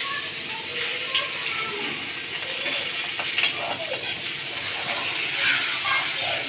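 Chopped garlic and radhuni seeds sizzling steadily in hot oil in a steel kadai. A few light clinks come from a metal slotted spoon stirring against the pan about three seconds in.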